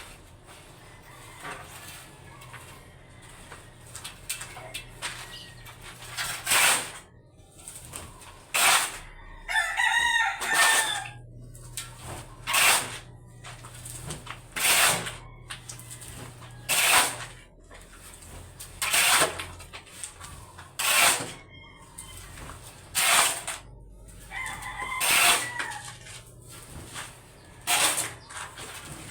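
A rooster crows twice, about ten seconds in and again near the end. Underneath, a short noisy stroke repeats about every two seconds, like steady hand work on the site.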